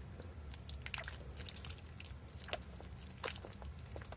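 A koala drinking water offered by hand, its mouth making faint, irregular wet clicks and slurps.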